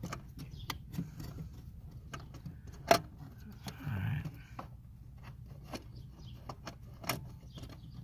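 Small clicks and rattles of plastic and metal from hands working a brake light switch and its wiring plug behind the brake pedal, with one sharp click about three seconds in and another near the end.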